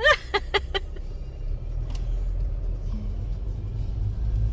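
Steady low rumble of a car's engine and road noise heard from inside the cabin, with a brief voice in the first second.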